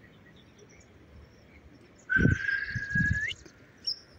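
A bird calling: one steady high note about a second long that rises at its end, starting about two seconds in, then a short high chirp near the end.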